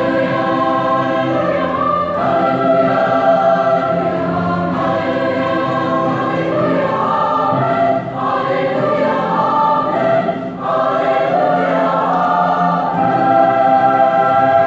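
Large mixed-voice choir singing a Christmas processional in held chords, with two brief breaks for breath partway through and a louder sustained chord near the end.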